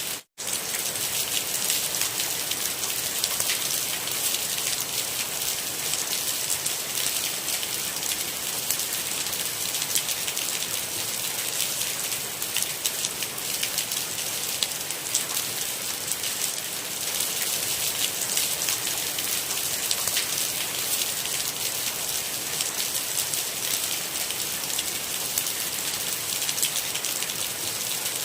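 Steady rain falling, a dense even patter of drops with no thunder. The sound cuts out completely for a split second just after the start, then carries on unchanged.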